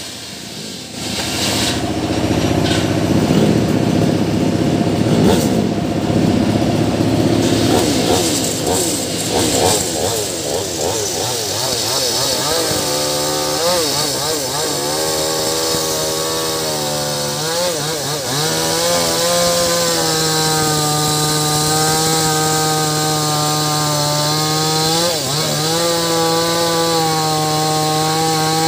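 Maestro Plus CS6500L two-stroke chainsaw running at high revs while cutting into a large wooden stump. The engine pitch wavers under load at first, then holds steady, with brief drops in engine speed about 17 and 25 seconds in.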